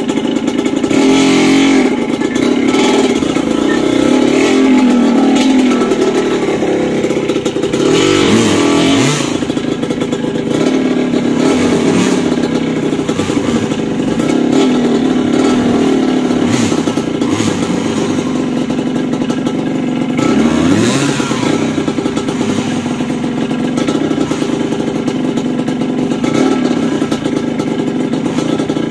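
Motorcycle engine running while riding, its pitch dipping and rising with throttle changes twice, about a third of the way in and again about two-thirds of the way in.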